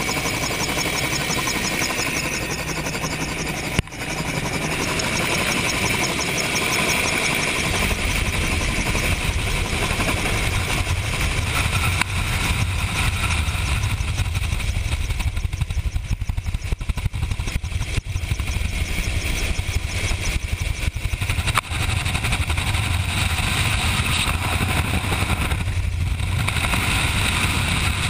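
Helicopter in flight, with the rotor and engine running loud and steady and air rushing past the open side. From about eight seconds in, a fast rhythmic rotor beat grows strong and deep as it lifts off and flies low.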